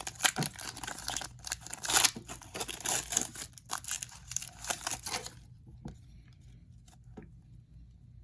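Wrapper of an Upper Deck Credentials hockey card pack being crinkled and torn open, a tough wrapper that is hard to tear. The crackling and tearing stops about five seconds in, followed by a few faint clicks.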